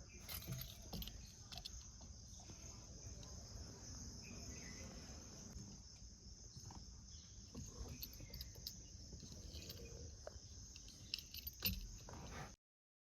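Faint outdoor ambience with a steady high-pitched insect drone and scattered light clicks and knocks. It cuts off suddenly near the end.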